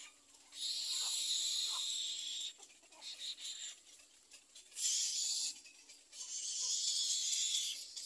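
Little egret chicks giving harsh, raspy begging calls in three bursts, a long one at the start, a short one about five seconds in and another long one near the end.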